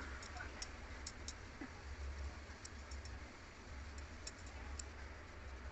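Faint, irregular small clicks and ticks from hands pressing and shaping a soft potato cutlet mixture over a plastic bowl, over a low steady hum.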